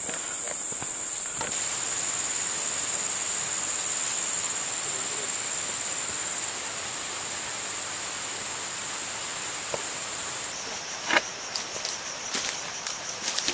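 Steady high-pitched buzzing chorus of rainforest insects. Near the end, footsteps crunch on the forest floor.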